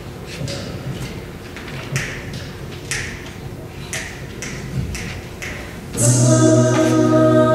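Sharp clicks about once a second, keeping time. About six seconds in, an a cappella group comes in singing a loud, sustained chord.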